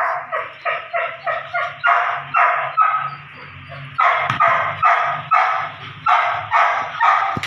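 Belgian Malinois puppy barking in rapid, high-pitched yips, about three a second, excited by ball play. There is a short lull about three seconds in, and the barking stops at the end.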